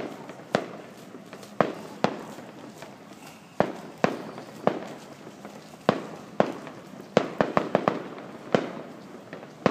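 Fireworks display: shells bursting in sharp bangs every second or so, with a quick run of bangs about seven seconds in and crackling between them.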